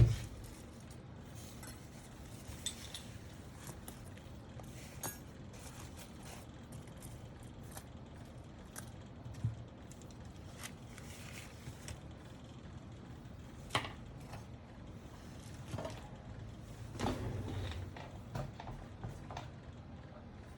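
Scattered small clicks and taps of mechanical keyboard parts being handled on a workbench, with a brief rustle of handling near the end, over a faint steady hum.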